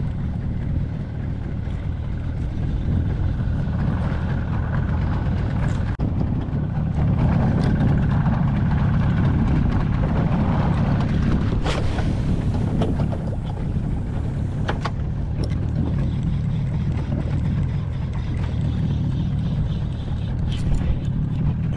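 Steady low rumble of wind buffeting a body-worn camera's microphone, with a few sharp clicks.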